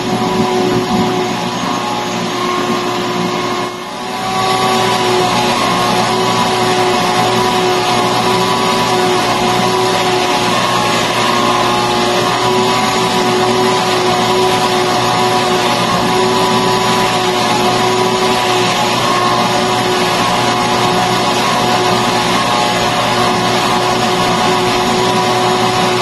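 Bucket-style canister vacuum cleaner running steadily with a constant motor whine as its nozzle is worked over fabric sofa upholstery, with a brief dip in level about four seconds in.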